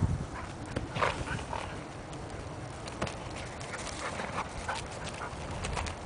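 A Portuguese Water Dog mix whining and yipping in many short, high bursts, with the odd hoof thud as a Quarter Horse gets up and trots on grass.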